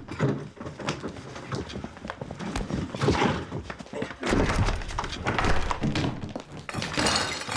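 A physical scuffle: a run of irregular thuds, bumps and shuffling as a man grabs and hauls a struggling boy. A louder, harsher burst of commotion starts near the end.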